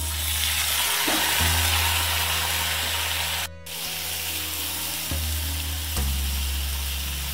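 Cubed potatoes sizzling in hot mustard oil in a kadai, turned with a metal spatula. The steady sizzle breaks off for an instant about halfway through.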